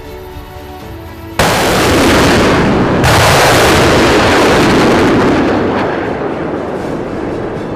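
Two large explosions, the first about a second and a half in and the second about a second and a half later. Each starts suddenly and rumbles away slowly over several seconds, over quiet background music.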